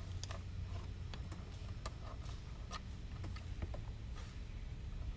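Scattered small clicks and taps of hands handling a plastic radio transmitter, over a steady low hum.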